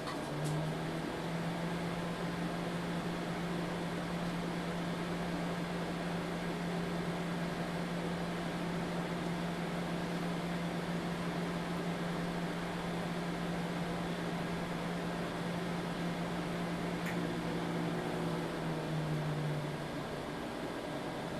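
Microwave oven running: a steady fan whir throughout, with a deep hum that comes on about half a second in and cuts out near the end. This is the magnetron switching on and off as the oven cycles at power level 5.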